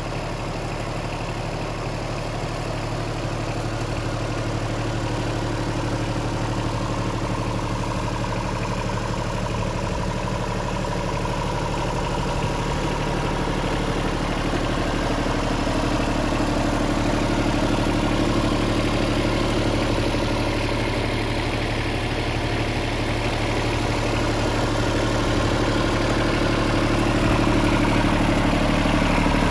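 Yanmar F6 compact tractor's diesel engine idling steadily.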